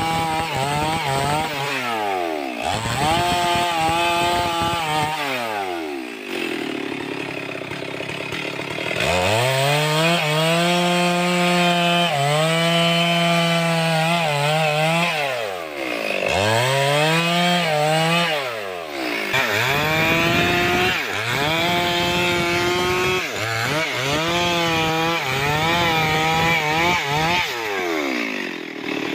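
Two-stroke chainsaw revved to full throttle and cutting wood in several long passes. Its pitch falls away toward idle between cuts and climbs again each time the throttle is opened.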